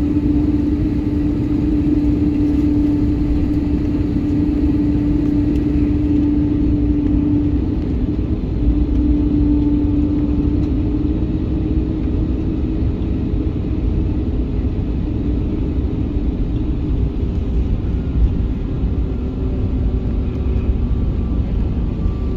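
Airbus A321neo cabin noise while taxiing: a steady low rumble with a steady engine hum that is strong at first and weakens about halfway through.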